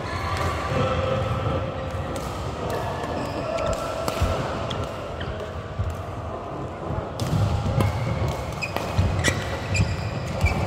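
Badminton rally in a large sports hall: sharp racket hits on the shuttlecock and players' footsteps on the court, echoing, over a background din of voices.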